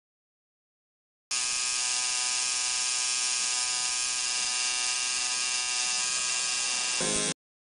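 Tattoo machine buzzing steadily as it needles ink into skin. The buzz starts abruptly about a second in and cuts off suddenly near the end.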